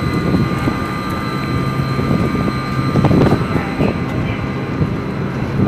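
New Jersey Transit Hudson-Bergen Light Rail car, a Kinki Sharyo light rail vehicle, moving out past the platform: a steady low rumble from its wheels and running gear, with a thin steady electrical whine above it.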